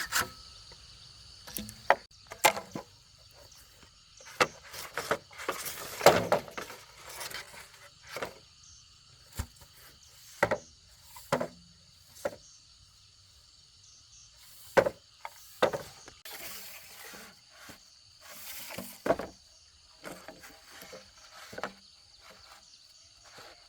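Irregular knocks and clatters of pieces of bamboo being handled between bouts of hand sawing, about a dozen separate hits. A faint steady insect buzz runs underneath.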